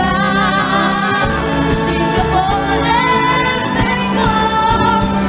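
Young voices singing a song into microphones, with instrumental accompaniment underneath.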